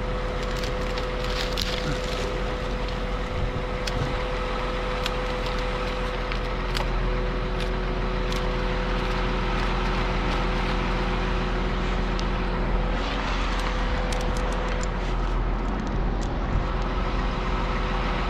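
An engine running steadily with a constant hum, with scattered light clicks and knocks close by throughout.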